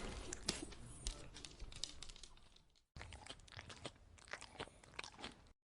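A dog chewing and crunching food, a quick run of crisp crunches that fades out about halfway through. After a brief silence, a second, quieter stretch of chewing follows.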